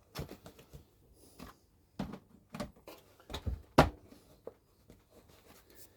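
Plastic Scalextric track pieces and their cables being handled and pressed into place: a scatter of light knocks and clicks, with one sharper knock about two-thirds of the way through.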